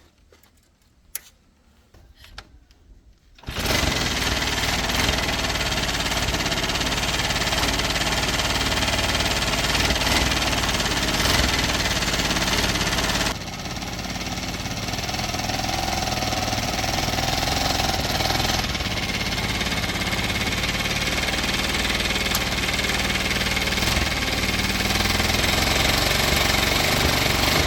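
Motor tricycle's engine starting after a few faint clicks, then running steadily on its test run after repair. The level drops a little about halfway through and the engine keeps running.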